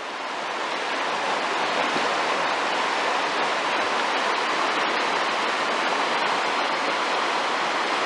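Rapids on a boulder-strewn river rushing steadily, swelling up over about the first second and then holding level.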